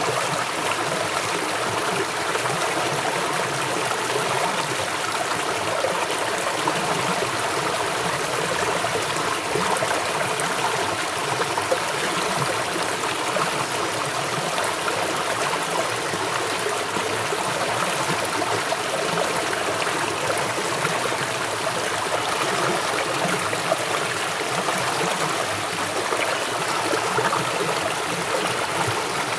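River water flowing fast over its bed, a steady rushing and babbling.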